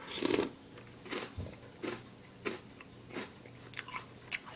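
A mouthful of Reese's Puffs cereal being bitten off a spoon and chewed, close to the mouth: one louder bite just after the start, then regular chews about every two-thirds of a second.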